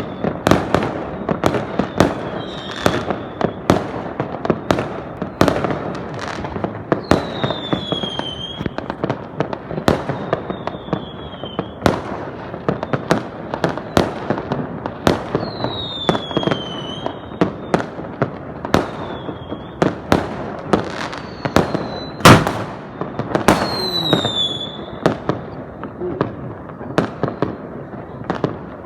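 Fireworks going off in a steady run of sharp bangs, often several a second, with short whistles falling in pitch every few seconds. One bang about two-thirds of the way through is much louder than the rest.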